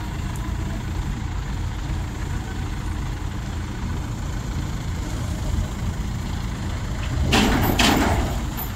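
Mobile crane's heavy engine idling steadily. About seven seconds in come two loud bursts of rushing noise, half a second apart.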